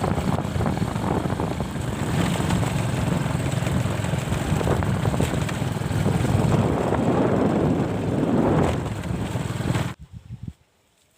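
A vehicle running on the move, its engine noise mixed with a heavy rumbling wind buffet on the microphone. It cuts off abruptly about ten seconds in.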